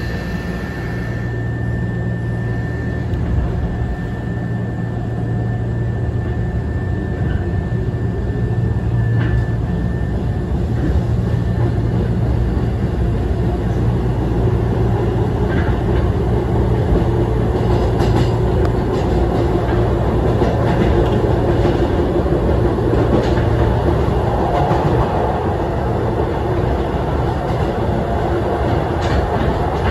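Keisei 3500 series electric train accelerating, heard from the driver's cab: a steady running rumble with a motor whine rising slowly in pitch. Wheels clicking over rail joints in the second half.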